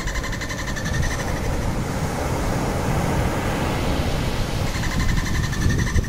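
Bottlenose dolphin burst-pulse calls: a rapid buzzing click train for about a second and a half at the start, and another beginning near the end. A steady low underwater rumble with a rushing hiss runs beneath them.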